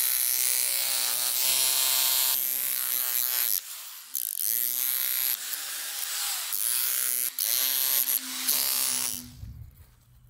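Corded electric jackhammer fitted with a homemade shovel blade, chopping into the soil and roots around a young tree. It runs in several bursts, its motor pitch sagging as the trigger is let go and rising again as it restarts, and it winds down and stops about a second before the end.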